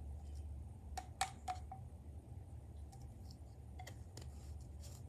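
A few light clicks and taps of small hard objects being handled, a cluster of them about a second in and two more near four seconds, over a steady low hum.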